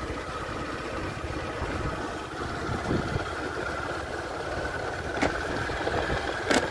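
Motorcycle engine running steadily while riding on a dirt track, with two sharp knocks in the last couple of seconds.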